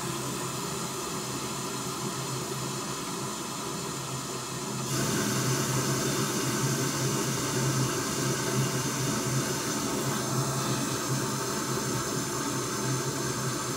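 Pink noise test signal from a measurement generator playing through a loudspeaker as a steady hiss. About five seconds in a second loudspeaker joins and the noise grows louder, the second speaker's sound arriving about 2 ms after the first.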